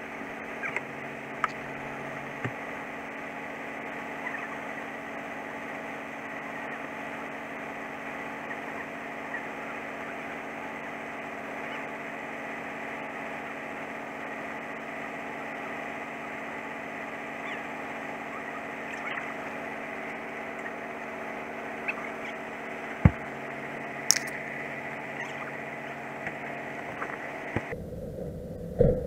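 Scania truck's diesel engine idling steadily, with a few sharp knocks and clicks about two-thirds of the way through. The engine sound cuts off abruptly near the end.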